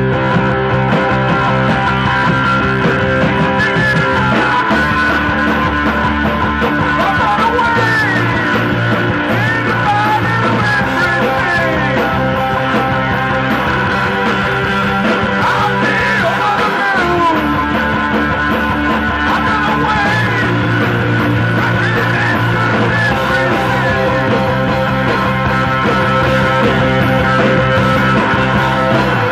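Live rock band playing: electric guitar, bass guitar and a drum kit, loud and continuous, with wavering lead lines above. The bass and drums drop out for a moment about seventeen seconds in.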